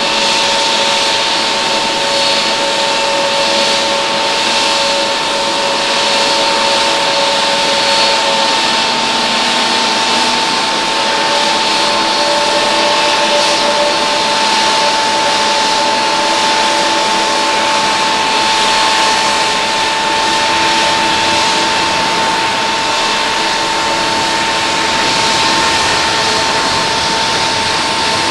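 Airbus A350-900's Rolls-Royce Trent XWB turbofans at takeoff thrust during the takeoff roll and lift-off: a loud, steady jet rush with a high, even whine.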